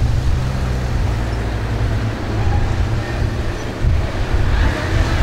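Street traffic noise: a steady, heavy low rumble of road vehicles.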